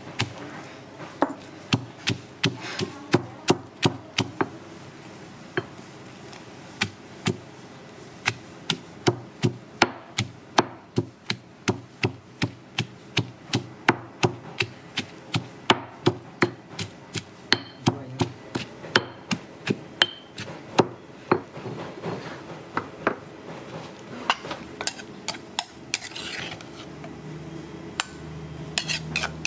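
Kitchen knife or cleaver chopping repeatedly on a wooden block, sharp knocks about two to three a second, with a short pause a few seconds in and thinning out near the end.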